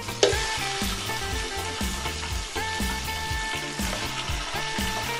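Raw mutton pieces hitting hot olive oil in a pan: the sizzle starts suddenly about a quarter second in as the meat goes in, then keeps going steadily as the meat fries.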